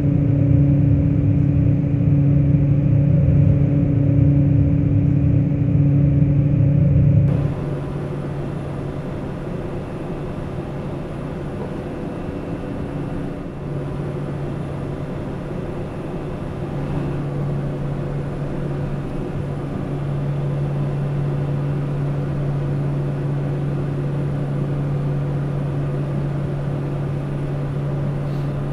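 Pilatus PC-12 NGX's single turboprop engine and propeller droning steadily in the climb after takeoff. About seven seconds in, the sound drops abruptly in level and takes on more hiss, while the steady propeller hum carries on.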